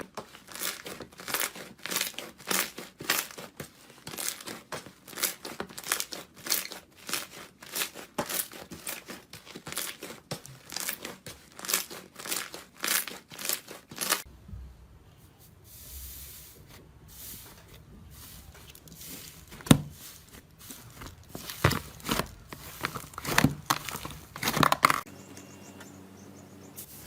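Slime being squeezed and pressed by hand, giving rapid crackling and popping, several clicks a second. About halfway through it turns quieter, with fewer and sparser pops and one sharp snap.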